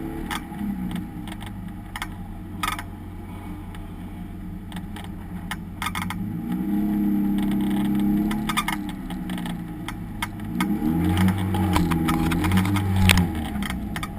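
Race car engine running at fairly low revs, its pitch rising and falling twice, with scattered sharp clicks and rattles over it.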